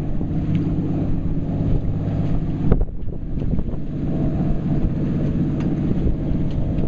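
Fishing boat's engine running steadily, with wind buffeting the microphone. A single knock about three seconds in.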